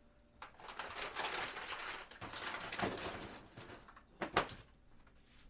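Rustling and handling of a dog-food bag as food is scooped out, a noisy crinkling that runs for a few seconds, then two sharp clicks about four seconds in.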